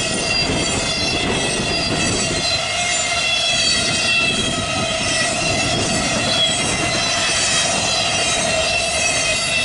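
A fast intermodal freight train rolling past, its steel wheels on the rail giving a steady loud running noise with several high, wavering squealing tones over it.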